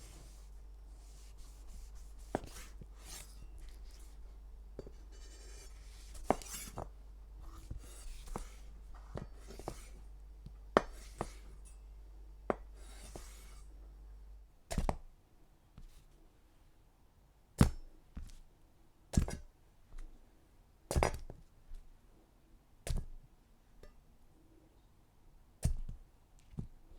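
Knife cutting on a cutting board: soft slicing and scraping strokes at first, then from about halfway a series of about nine sharp, separate chops, one every second or two.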